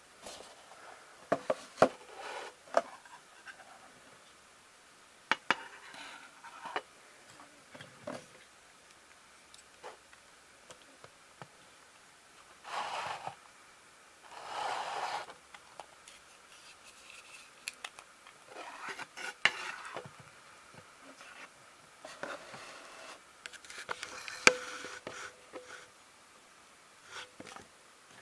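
Small clicks, taps and short scraping rubs from a small diecast model lorry being handled: metal and plastic parts knocking against each other and on a hard surface. The sounds come at irregular intervals with pauses between.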